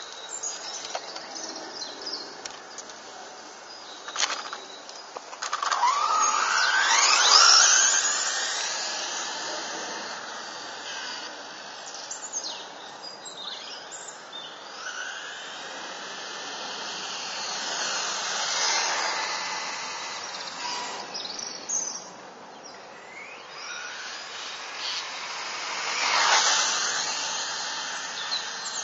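Kyosho Ultima DB electric RC buggy with a Hobbywing EZRun 8.5T brushless motor, its high motor whine rising and falling in pitch as the car speeds past on asphalt. It passes loudest about seven seconds in, and again around eighteen and twenty-six seconds.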